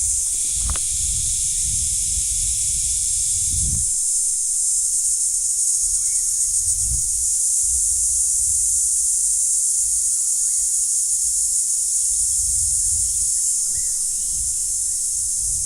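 Steady, shrill, hissing drone of forest insects, with a second, lower insect layer that stops about four seconds in. Low rumbling bumps on the microphone come and go underneath.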